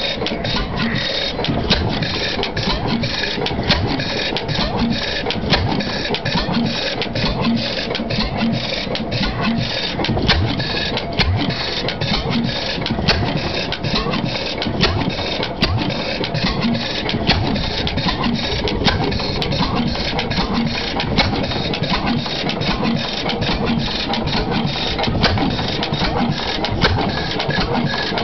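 Early Fairbanks-Morse 15 hp Z hit-and-miss engine running, with a rapid, even mechanical clatter and a low thump about every second and a half.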